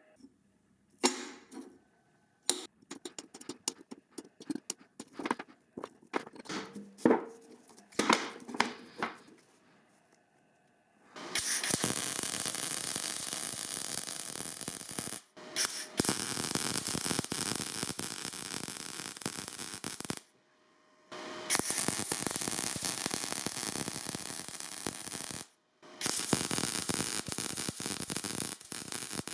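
Metalworking tool sounds: a run of sharp clicks and scrapes, then a loud, steady hiss-like noise that stops and starts suddenly several times.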